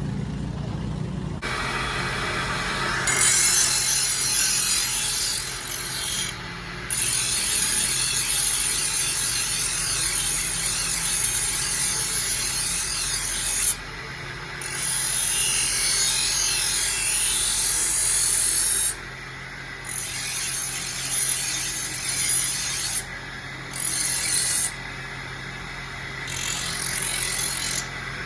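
A sickle blade being sharpened against an abrasive, a harsh grinding hiss in repeated bouts of a few seconds that each stop abruptly. A steady machine hum runs beneath.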